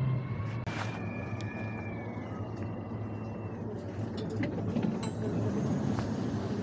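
Steady low rumble of a moving vehicle heard from inside, with scattered clicks and rattles.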